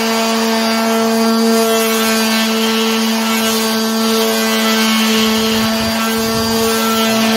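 Skil 280 W variable-speed orbital finishing sander running at full spin with a steady pitch, its pad sanding the edge of a wooden board.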